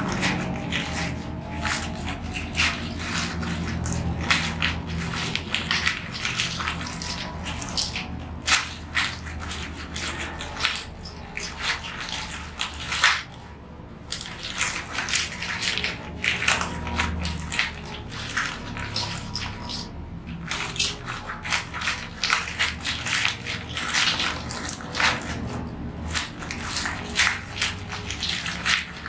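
A plastic bag crinkling and crackling in the hands as powder is shaken out of it into a plastic container, with dense irregular crackles that pause briefly twice.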